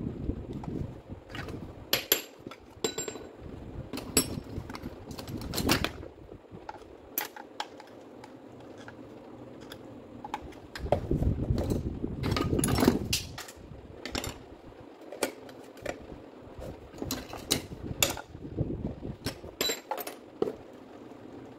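Metal parts of a stripped-down Makita rotary hammer clicking and clinking as gloved hands handle its barrel housing, with stretches of rubbing handling noise, the loudest near the middle.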